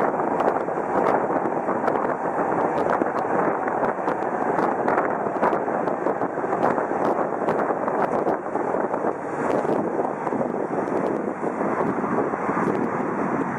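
Tram running along its track, heard from inside the car: a steady rumble of wheels and running gear on the rails, broken by many small sharp clicks and rattles.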